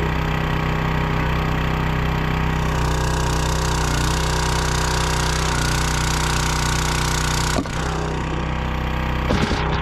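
Small gas engine of a log splitter running steadily while splitting maple firewood. About two and a half seconds in, a harsher, noisier sound joins the engine and cuts off suddenly after about five seconds, and a few sharp knocks follow near the end.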